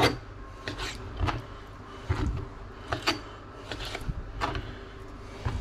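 Kitchen knife cutting raw magpie goose meat into cubes on a cutting board: a series of irregular knocks as the blade goes through the meat and strikes the board, about one or two a second.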